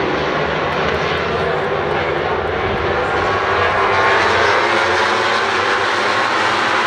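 Pack of MotoGP race bikes at full throttle, many engines screaming together in one loud, steady mass of sound with pitches sliding as they shift and pass.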